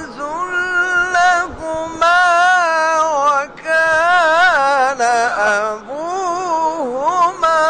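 A male reciter chanting the Qur'an in the melodic mujawwad style. The vowels are long, held and ornamented, with wavering pitch, sung in several phrases with short breaks between them.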